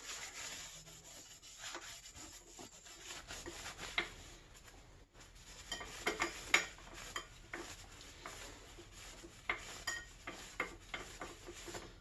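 Rag rubbing and scrubbing a metal brake disc, a scratchy wiping sound broken by irregular light clinks and knocks of metal parts.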